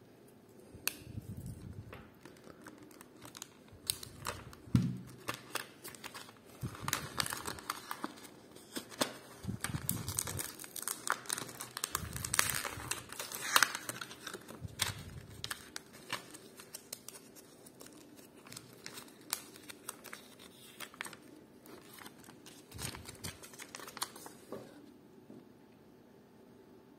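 Packaging being unwrapped and handled by hand: a long run of crinkling with small clicks and taps, busiest in the middle and dying away a few seconds before the end.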